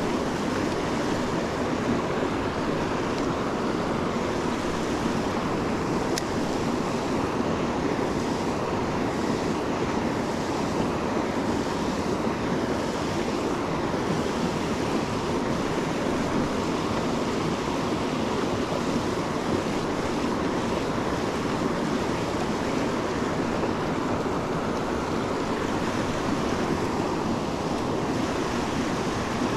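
River water rushing steadily, an even wash of moving current.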